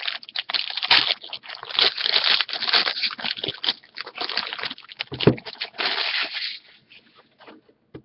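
Rustling and crinkling as trading cards and their pack wrapping are handled, stopping about six and a half seconds in, after which only a few light clicks remain.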